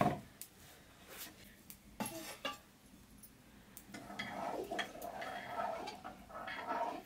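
Metal kitchen utensils clinking and knocking on steel dishes in a few separate taps. In the last three seconds this gives way to a steadier run of scraping and clatter as a ladle stirs in a metal pot.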